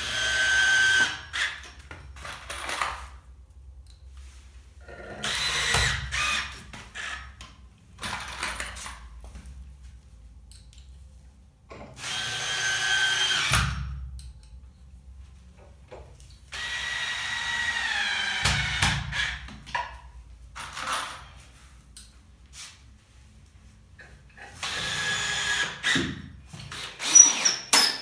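Power drill run in about six short bursts of one to three seconds, several seconds apart, while working on wooden floor joists. On the longest burst its whine drops in pitch as it takes load.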